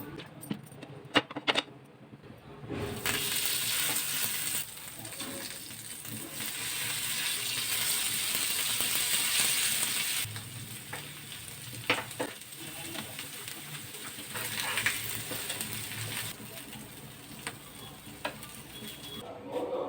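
Aloo bread toast frying on a hot pan, with a steady sizzle that is loudest from about three to ten seconds in and quieter afterwards. A few sharp clicks are heard near the start and again later.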